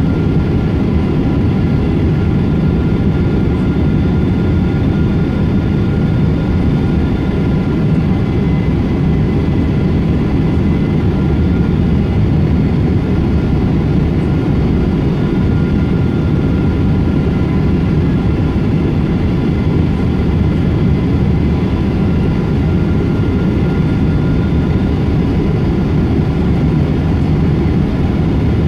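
Steady rumble of a Boeing 777-200's jet engines and airflow, heard inside the passenger cabin in flight. A few faint steady whining tones sit above the rumble, which neither rises nor falls.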